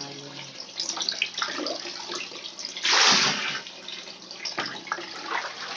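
Water sloshing and splashing in a plastic tub as a plastic dipper scoops and pours it, with one loud splash about three seconds in.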